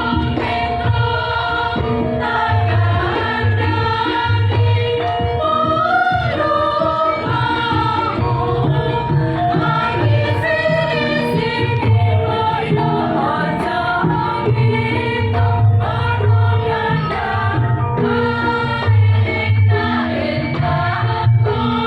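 A women's choir singing a song in several parts, with instrumental accompaniment that keeps a steady low beat.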